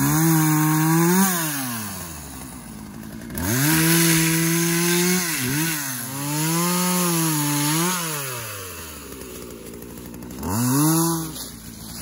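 Two-stroke chainsaw revved up four times to cut through downed branches and brush, holding high under load and dropping back to idle between cuts.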